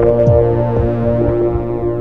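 Background music: held synthesizer and keyboard chords over a steady low bass note.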